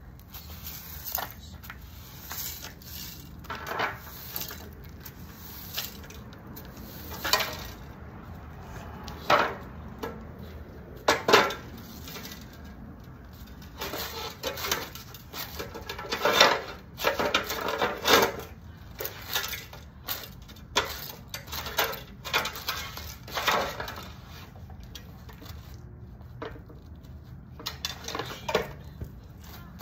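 Irregular clinks, clatters and short scrapes of hard metal and plastic pieces being handled and knocked together, with a few louder knocks: parts of a smashed TV being pulled apart and moved.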